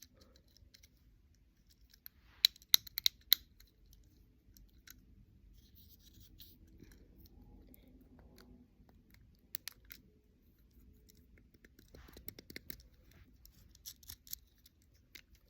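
Fidget cube being worked by hand: sharp little plastic clicks, a few loud ones about three seconds in and a quick run of them near the end, with faint rubbing between.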